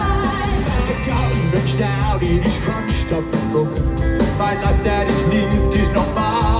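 Rock band playing live through a stage PA, with electric guitars, bass, drums and keyboards, heard from within the audience.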